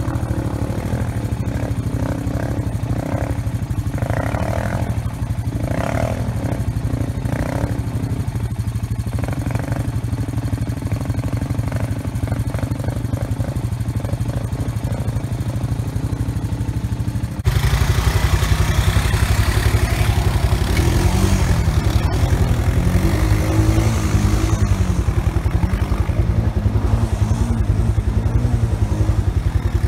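Honda ATV engine running as the quad wades through deep floodwater, distant at first. About halfway through, the sound jumps louder and closer: the engine revs up and down under load while the quad pushes through the water, with splashing.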